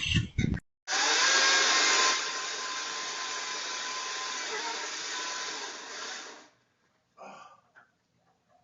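A steady rushing hiss that starts abruptly, is loudest for its first second, then carries on softer and cuts off suddenly after about five and a half seconds.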